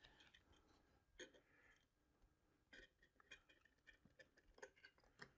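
Near silence with a scattering of faint, short clicks: tiny spinner screws and the plastic spinner cone of an electric RC model plane being handled and fitted over the propeller hub.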